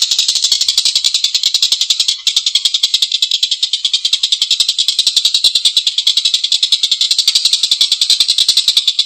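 Tengkek buto kingfisher giving its long, harsh cackling call: a rapid, unbroken run of rasping notes, about ten a second, with one brief break about two seconds in.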